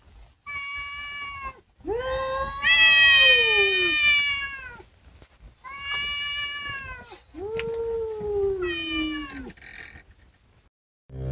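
Cats yowling: about five long, drawn-out meows, some overlapping. The longest and loudest runs from about two to five seconds in and falls in pitch at its end.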